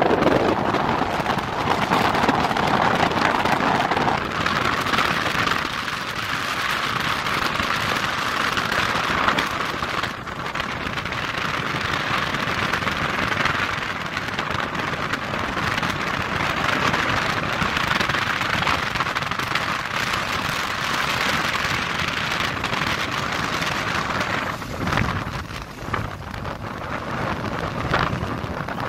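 Wind rushing over the microphone of a camera on a moving motorcycle: a steady, loud hiss that dips briefly a few times.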